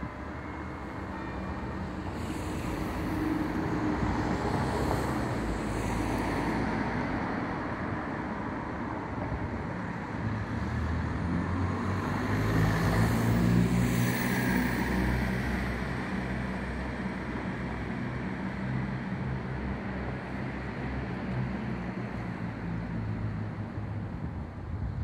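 Street traffic: motor vehicles running by with a continuous rumble of engines and tyres, swelling as a vehicle passes close about twelve to fourteen seconds in.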